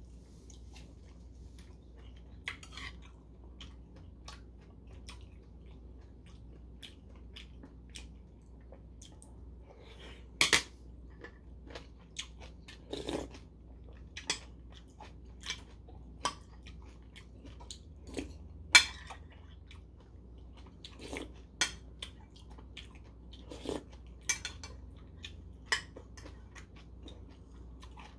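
Eating sounds: chewing, with a metal spoon clinking and scraping against a porcelain soup bowl in scattered clicks, the sharpest about ten and nineteen seconds in.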